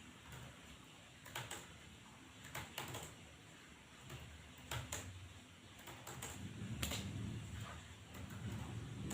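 Scattered single clicks from computer keys and buttons, about a dozen, irregularly spaced, over a low background rumble that grows louder near the end.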